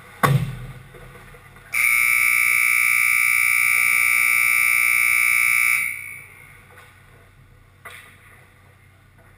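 A sharp knock just after the start, then the ice rink's buzzer sounds one steady, harsh, high tone for about four seconds, starting about two seconds in and cutting off abruptly. A smaller knock follows near the end.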